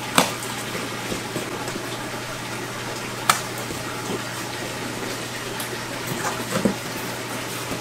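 Steady rush of running water with a low pump hum from the aquarium systems. Over it come a few sharp clicks and knocks as a cardboard shipping box is opened and its flaps are folded back.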